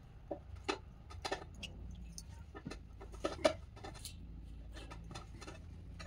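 A scatter of faint, short clicks and light knocks, about a dozen, as the steel clamps on the bandsaw blade ends and the work on them are handled.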